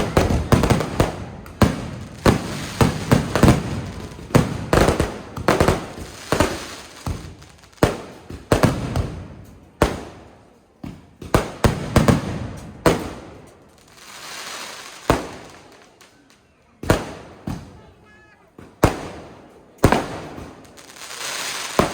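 Fireworks going off: a rapid string of loud bangs over the first half, then single blasts a second or two apart, each echoing away. Around the middle there is a spell of fainter crackle.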